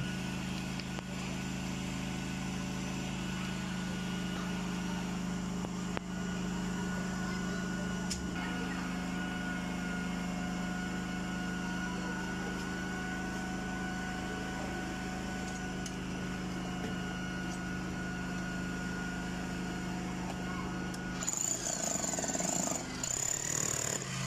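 An engine running steadily at constant speed, an even hum. About three seconds before the end the hum drops out under a louder burst of scraping, clattering noise.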